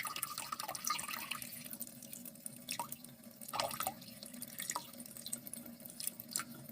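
Water dripping and splashing in short, irregular bursts over a steady low hum.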